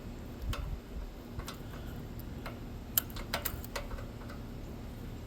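Light metallic clicks and ticks of hand tools on the engine's valve train as the rocker arm adjusters are worked to set valve lash, several separate taps with the sharpest about three seconds in.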